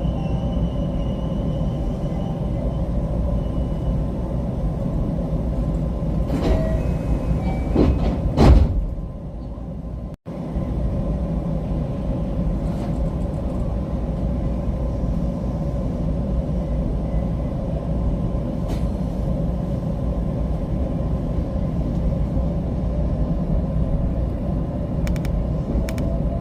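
JR West 225 series electric train running, a steady low rumble of wheels on rail. The noise swells to a louder rush about eight seconds in, quietens, and cuts out for an instant just after ten seconds before the steady running sound resumes.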